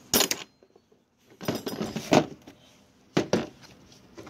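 Metal clinks and knocks as old and new dog-bone engine mounts are handled and turned over, knocking against each other and the tools: one just after the start, a run of them around the two-second mark, and another about three seconds in.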